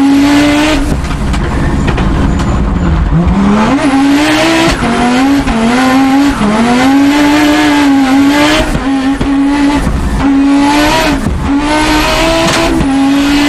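Race car engine being driven hard, its revs rising and falling repeatedly as it goes through gears and corners.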